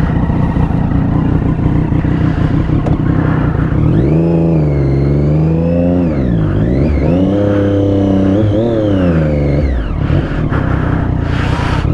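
Triumph Daytona 675's three-cylinder engine pulling away: a low running rumble, then from about four seconds in the engine note climbs, drops sharply and climbs again before falling back near the ten-second mark.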